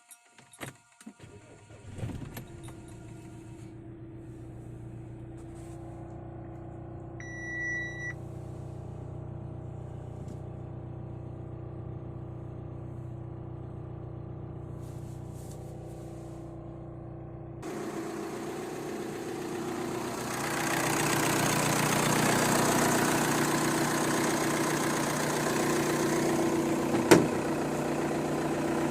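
An Audi A4's engine starts about two seconds in and settles into a steady idle, with a short chime around seven seconds. From about eighteen seconds a louder rushing noise builds up over the idle.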